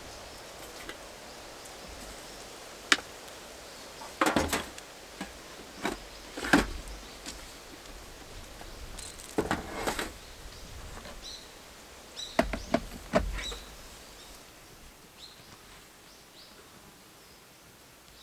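Scattered knocks and short bursts of clatter from objects being handled, coming in clusters a few seconds apart, with a few faint high chirps in the second half.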